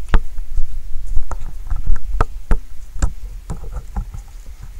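Irregular sharp taps of storm drops striking a hard surface close to the microphone, several a second, over a steady low rumble.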